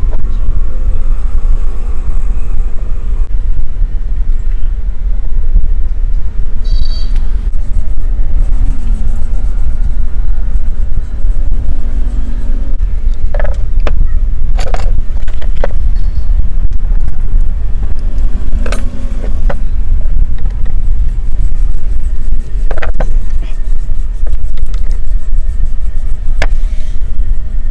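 A loud, steady low rumble, with a few short sharp clinks scattered through the middle and latter part.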